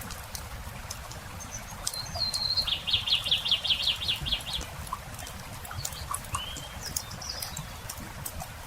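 Campfire crackling with scattered sharp pops over a low steady rumble. A songbird sings a quick trill of about a dozen repeated notes from about two to four and a half seconds in, followed by a couple of short chirps.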